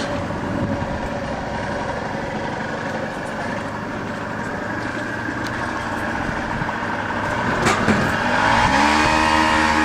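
Steady traffic background. About eight seconds in, a vehicle's motor note rises and then holds steady as it gets louder, as a vehicle pulls away nearby.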